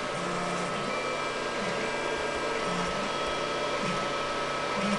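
Tronxy 500 large-format 3D printer running a print: its stepper motors sing in short steady low notes that jump to a new pitch every half second or so as the print head moves, over the steady whir of the hotend's cooling fan.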